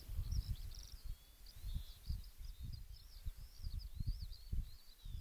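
Birdsong: a continuous run of high chirps, short sweeps and brief trills, under low gusts of wind rumbling on the microphone.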